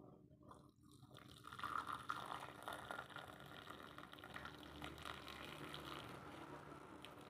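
Herbal decoction being poured from a pot through a strainer into a glass: a steady pouring trickle that starts about a second in and is loudest at first.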